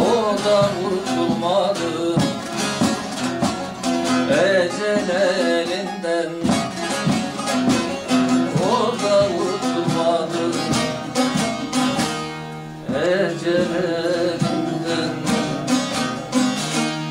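Two bağlamas (long-necked Turkish saz lutes) playing a folk melody together with quick plucked notes, dipping briefly about two-thirds of the way through.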